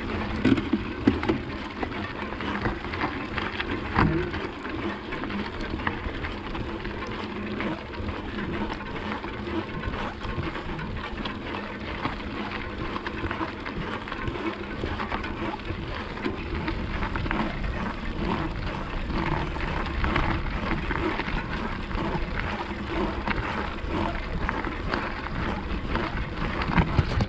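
Mountain-bike tyres rolling over a loose gravel track: a steady crunching noise with many small clicks and rattles.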